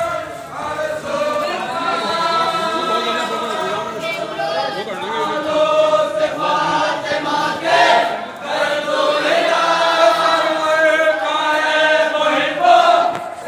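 A group of men chanting a Muharram mourning lament (nauha) together, several voices held in long wavering lines and overlapping.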